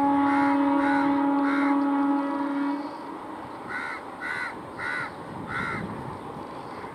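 WAP-4 electric locomotive's horn sounding one long steady note for nearly three seconds, then cutting off. A crow caws over and after it, about seven short caws in two groups.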